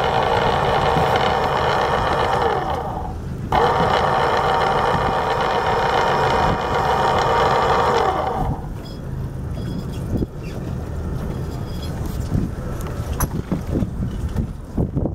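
Electric capstan anchor windlass motor running with a steady whine, switched off about 3 s in so that it winds down, started again half a second later and winding down to a stop around 8 s in. Softer knocks and handling noise follow.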